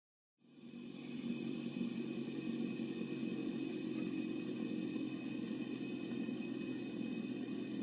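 Fidget spinner whirring steadily, a constant airy hum with hiss that starts about half a second in and swells over the first second.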